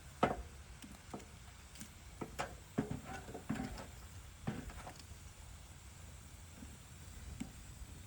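Wood fire crackling: a run of sharp pops and knocks from burning wood, the loudest just after the start and the rest bunched in the first five seconds. After that it settles to a low hiss with a single faint pop near the end.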